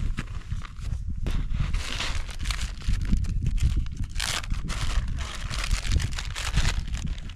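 Irregular crunching and scraping in snow, with a steady low rumble underneath.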